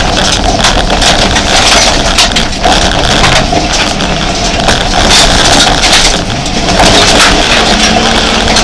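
Jeep Grand Cherokee rally 4x4 heard from inside the cabin, its engine running hard over a rough dirt track, with frequent knocks and rattles throughout.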